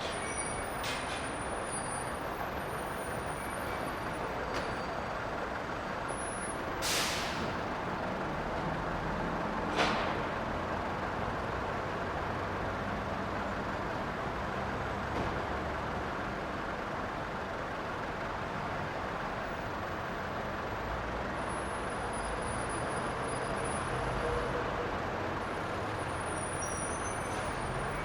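Bus station ambience: a steady rumble of bus engines, with a short hiss of air brakes about seven seconds in and a sharp knock just before ten seconds.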